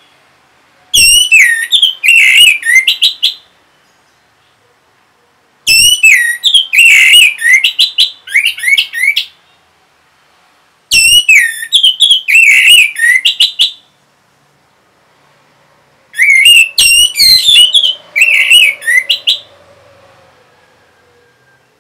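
Orange-headed thrush singing: four bouts of rapid, high whistled phrases, each a few seconds long, with short pauses between them.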